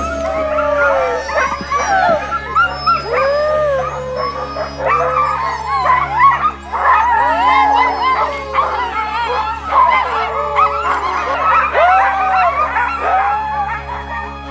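Many dogs howling and yipping at once, a dense chorus of overlapping rising and falling calls over a steady low hum.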